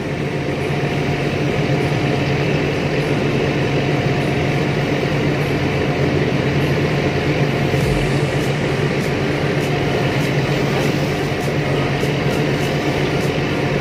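Tug boat's diesel engine running steadily under towing load, a low even drone, over the wash of churned water along the hull.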